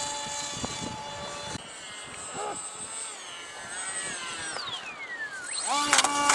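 RC model aircraft motor whining at steady speed, then its pitch falling for a couple of seconds, followed near the end by a sudden sharp rise in pitch and a loud burst.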